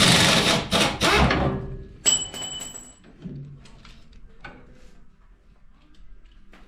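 Metal hand tools and sockets clattering, then a sharp metal clank about two seconds in that rings on for about a second, followed by light scattered tool clicks.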